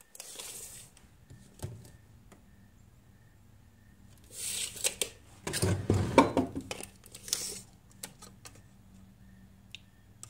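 Steel tape measure being handled and its blade pulled out over a wooden hive box: short bursts of rattling and scraping, the longest cluster about halfway through, with a few single clicks.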